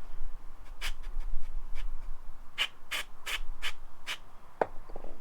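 Several short rubbing or scraping strokes as the rear-wheel spacer and parts are handled and fitted by hand, then a single sharp click near the end.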